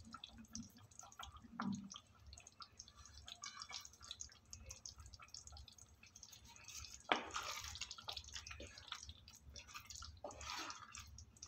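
Quiet wet sounds from a pan of thick egg curry gravy: soft popping and ticking as it simmers, then a wooden spatula stirring through the gravy in the second half, with two louder sloshing stretches.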